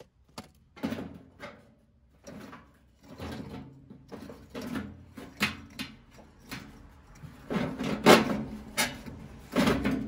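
Sheet-metal HVAC blower housing being handled and shifted about on stone, giving irregular clunks, knocks and scrapes, the loudest about eight seconds in and near the end.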